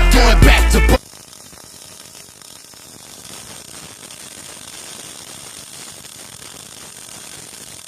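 Loud music for about the first second, then a sudden cut to a steady, quieter mechanical rattle of fine rapid ticks from metalworking machinery.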